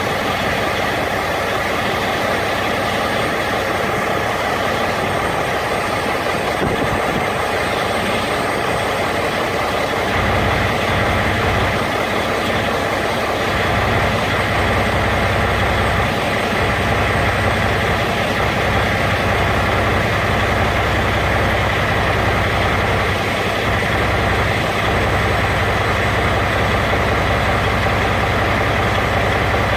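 Carrier Transicold XTC trailer refrigeration unit running steadily during its pretrip electrical-current test, with a steady machine drone. A deeper low hum comes in about ten seconds in and holds.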